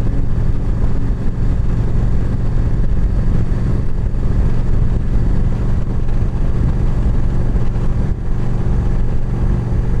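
Motorcycle at steady highway cruising speed: the Yamaha V-Star 1300's V-twin engine and wind noise, a loud, even low rumble with no music playing.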